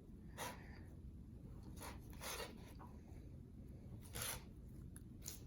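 Clear slime mixed with nail polish being kneaded and pulled apart by hand: about five short rasping sounds.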